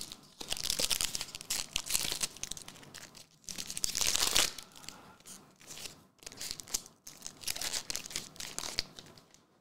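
Foil wrapper of a 2023 Upper Deck Marvel Platinum card pack crinkling and being torn open, in stretches of crackling with the loudest tear about four seconds in and more crinkling near the end.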